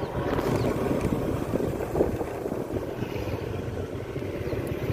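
Steady rumble of a vehicle driving slowly, its engine and road noise heard from on board.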